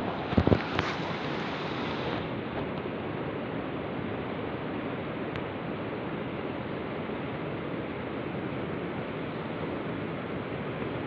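Steady rushing of river water. A few short knocks about half a second in are the loudest sounds.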